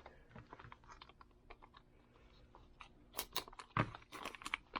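Handling of two gun magazines and a protective case: scattered small clicks and rustles, then a cluster of sharper clicks and a dull knock about three seconds in.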